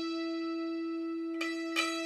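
Santoor (hammered dulcimer) strings ringing on one sustained note, struck twice more with the hammers about a second and a half in, as a single course is sounded again and again while the instrument is being tuned.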